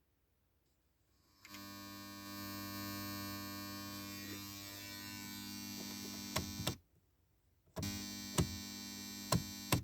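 Electrical buzz from a car radio's speakers on the AUX input, coming on about a second and a half in when the headlights are switched on, dropping out near seven seconds and returning about a second later, with a few sharp clicks along the way. It is interference from the headlight circuit, a grounding fault on the AUX connection.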